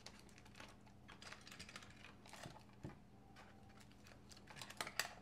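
Faint rustling of a plastic bag and paper packaging being handled in a hard-shell case, with scattered light taps and a few sharper clicks near the end.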